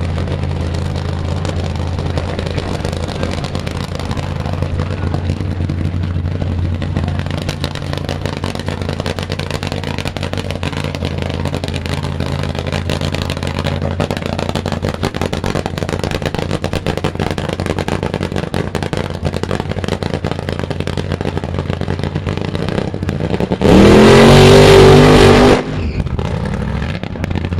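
An engine idling with a steady low drone, then a loud burst of throttle near the end: the pitch rises quickly and holds for about two seconds before dropping back to idle.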